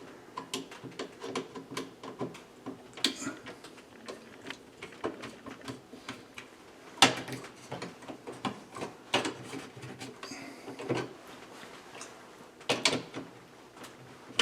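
Irregular clicks and light knocks of hands working on a hardwired smoke detector's wiring and plastic mounting bracket, with a few louder knocks about halfway through and near the end.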